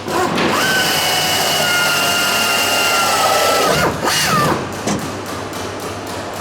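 Power drill running with a steady high whine for about three seconds, winding down, then a second short run about four seconds in.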